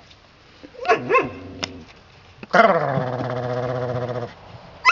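Red standard poodle puppies playing: a couple of short barks about a second in, then a long, steady growl lasting nearly two seconds from about halfway through.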